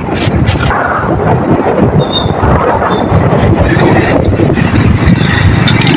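Heavy wind rumble buffeting the microphone over the road noise of a moving vehicle.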